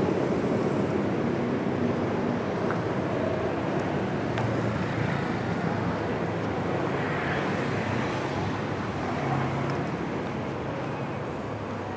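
Steady noise of road traffic passing close by, with faint engine hum underneath.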